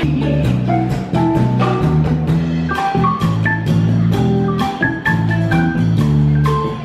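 Music: an upbeat instrumental with short bright melody notes over a steady bass line and a drum beat.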